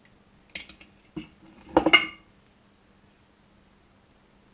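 A spoon knocking and scraping against the inside of a large glass jar while scooping out sticky dissolved styrofoam: two light knocks, then a louder clink with a short glassy ring about two seconds in.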